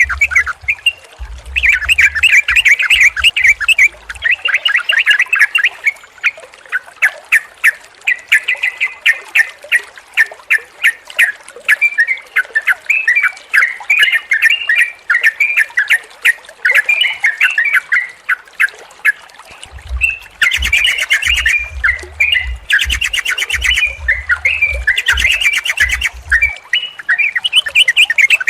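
Yellow-vented bulbuls (trucukan) chattering and calling in a dense, continuous stream of quick bubbly notes. Low rumbling thumps come in near the start and again from about two-thirds of the way through.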